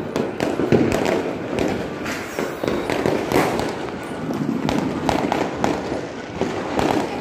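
Firecrackers and fireworks going off, many at once: a dense, irregular run of pops and bangs.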